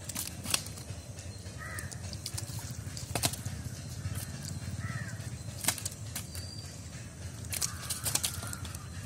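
Wet slaps, squelching and sharp knocks as fish are picked by hand out of thick mud and a net and tossed into a bucket. A few short bird calls sound in the background, about three times.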